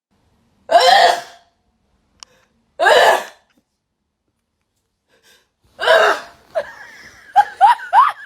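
A young woman sneezing three times, loud and about two and a half seconds apart, set off by a nasal swab. Then a few short, high, rising vocal sounds near the end.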